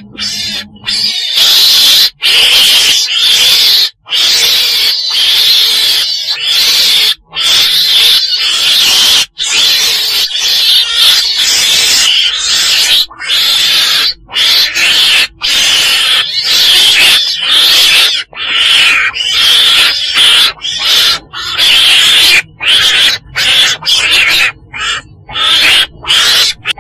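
Weasel (Mustela) calls, harsh and hissy chattering in runs of a second or two broken by many short gaps, as used to lure the animal for trapping.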